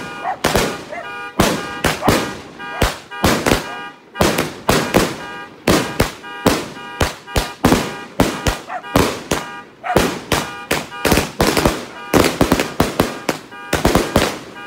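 Fireworks going off in a rapid barrage of sharp bangs, about two to three a second, packed tighter in places as shells launch and burst close overhead.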